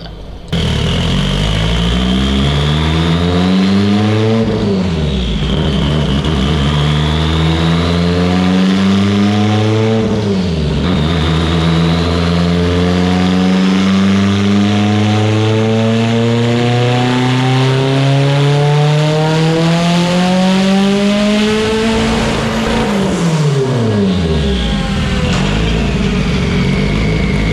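Turbocharged Mitsubishi Evo 8 2.0-litre 4G63 engine making a full-throttle dyno pull through its sequential dog box. The revs climb, drop sharply at two quick upshifts, climb again in a long pull, then fall away as the throttle is lifted, with a high whine rising along with the revs. The run is on a mixture the tuner reads as severely rich, with the wideband reading in doubt.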